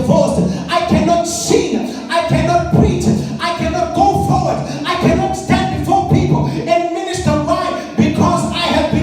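A voice singing, with music and percussive hits underneath.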